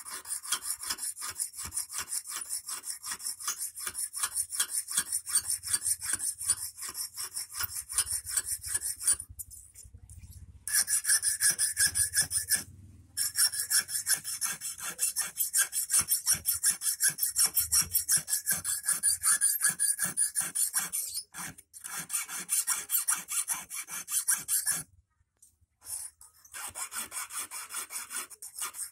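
Hand file rasping back and forth on the tip of a 2.5 mm stainless steel wire, in quick even strokes with a few short pauses, sharpening the point of a hook.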